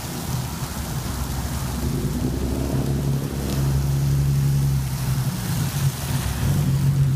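A 2014 Mustang's 3.7 L V6, fitted with long-tube headers, an off-road H-pipe, a muffler delete and a 'ghost cam' tune, running at low speed and getting louder as the car rolls up close. Hiss of rain and tyres on the wet road underneath.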